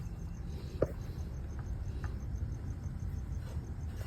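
Connecting rod of a two-stroke bottom end being rocked by hand to check its play: a sharp metal click about a second in and a few faint taps. Crickets chirp steadily in the background over a low rumble.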